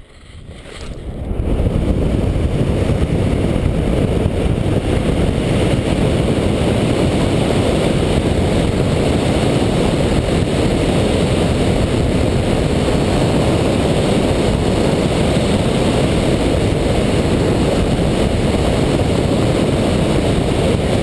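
Freefall wind rushing over a helmet camera's microphone during a BASE jump from a cliff. It builds over the first couple of seconds after the exit, then holds loud and steady.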